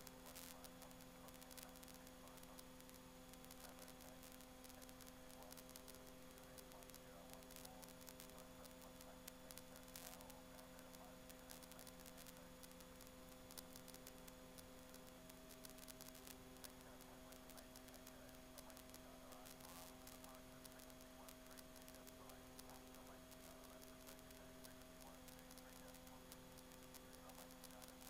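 Near silence: a faint steady hum made of several tones, over light hiss and static.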